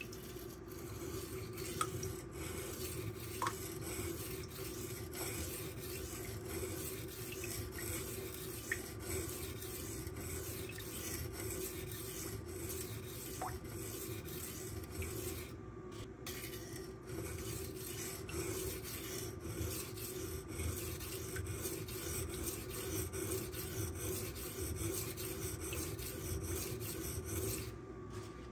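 Magnacut steel knife blade being stroked back and forth on a silicone carbide sharpening stone, a steady scraping rasp with brief lulls around the middle and near the end. The passes are grinding the back half of the edge to raise a burr there.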